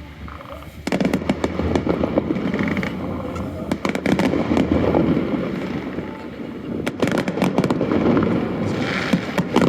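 Fireworks going off in a dense crackling barrage that starts about a second in, with sharp bangs scattered through it.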